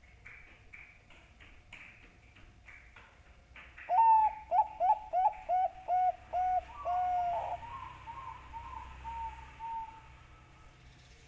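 Zebra dove (Bangkok-type perkutut) cooing: a run of quick, short hooked notes ending in one longer note, then fainter notes trailing off. Faint scratchy ticks come before the song. This is a lure call used to get perkutut to sing.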